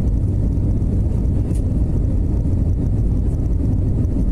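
Steady low rumble of aircraft engines at takeoff power, even throughout with no rise or fall.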